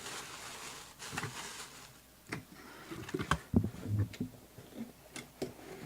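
Light handling noises: a dozen scattered clicks and soft knocks, some with a dull thud, as small objects are moved and set down on a table, with a brief hiss in the first second.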